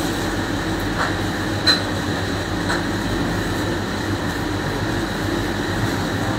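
Steady rumbling background noise with no speech, broken by a few light clicks in the first three seconds.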